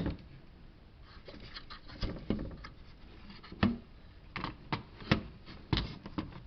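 A series of irregular clicks and light knocks from hands handling a car radio's plastic faceplate and housing.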